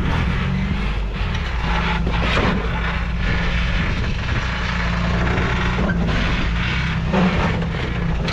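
Off-road truck's engine running at low revs as it crawls over rocks, its pitch shifting a little with the throttle. Scattered crunches and scrapes of tires and rock come and go over the top.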